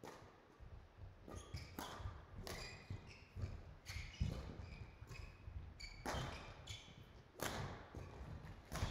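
Badminton rally: rackets striking the shuttlecock every second or so, with shoes squeaking and stepping on the court floor.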